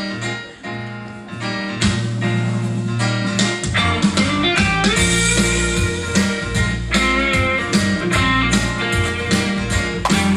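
Instrumental introduction to a gospel song, led by guitar; the accompaniment fills out about two seconds in and a deep bass line joins about four seconds in.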